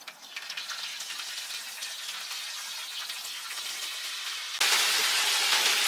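Food frying in hot grease in a pan, a steady sizzle that suddenly gets much louder about four and a half seconds in.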